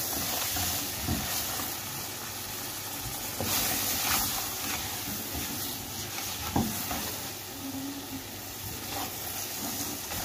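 Flour and butter roux sizzling in a pan while a silicone spatula stirs and scrapes through it: the flour is cooking in the fat and soaking it up, the first stage of a béchamel.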